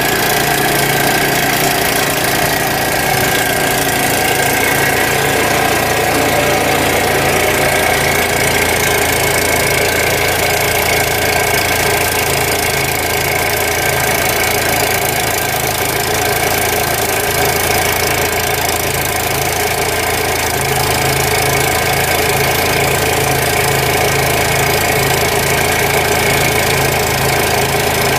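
Kohler 25 HP gas engine of a Vactron vacuum excavator running steadily at idle, a continuous even drone with a fast regular pulse.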